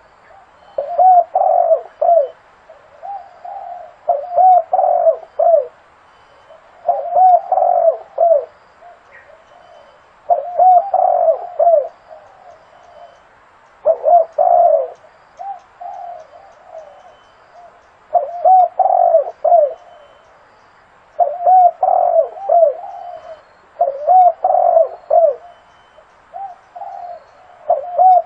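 Zebra dove singing: phrases of short, quick cooing notes, each a second or two long, repeated every few seconds.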